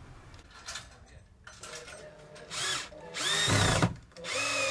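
Cordless drill driving screws up into a cabinet door hinge in short trigger pulls. A brief blip is followed by two longer runs of under a second each, the motor whine rising, holding and cutting off.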